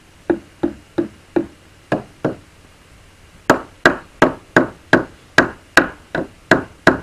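Hammer tapping on the metal heel fitting at the foot of a sailboat's rudder to knock the stuck rudder free. There are six lighter taps, a pause of about a second, then about ten harder, quicker taps, roughly three a second.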